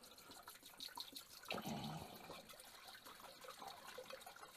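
Cleaning solution poured from a plastic gallon jug into the stainless steel tank of an ultrasonic cleaner: a faint liquid trickle, a little stronger about a second and a half in.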